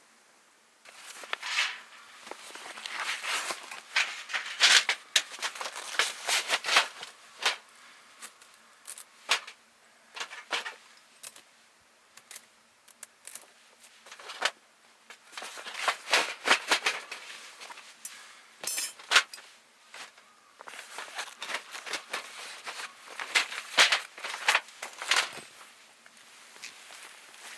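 Irregular bursts of rustling and clatter, separated by short pauses.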